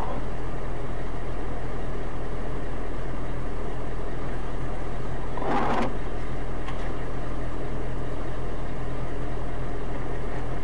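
Steady engine and road noise from a moving vehicle, heard from inside a large vehicle's cab through a dashcam, with a short, louder noise about five and a half seconds in.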